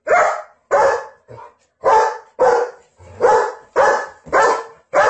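German Shepherd barking repeatedly: about eight loud, sharp barks with short gaps between them, and a few softer yips in between.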